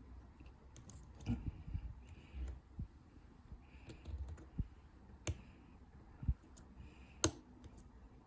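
Lock pick and tensioner working the pins of a four-pin Master Lock padlock: scattered small clicks and scrapes as pins are lifted and set, the sharpest click about seven seconds in.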